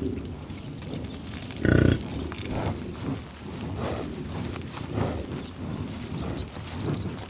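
American bison grunting while grazing: one loud, low grunt about two seconds in, then softer short grunts and grazing noises every half second to a second.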